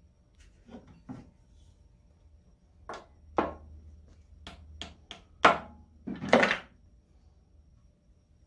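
A series of sharp metal knocks and clanks, about nine in all, as parts are handled at the crankshaft and bearing housing of an International Type M engine's crankcase. The loudest come near the end, the last a short rattling clatter.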